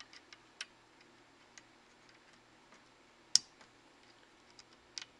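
White plastic plug connectors on the backlight fluorescent-tube leads clipping into the sockets of an LCD TV inverter board: a few faint clicks, with a sharp, louder click a little past halfway and another near the end.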